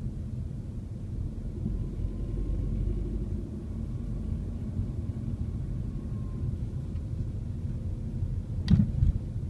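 Low, steady rumble of road and engine noise heard inside a Mercedes-Benz car's cabin while driving, with one sharp knock near the end.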